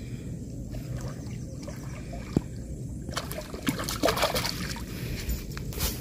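A hooked fish splashing and sloshing at the water's surface as it is hauled in toward the bank on a hand line, over a steady low rumble. From about three seconds in, sharper rustles and knocks come thick and fast.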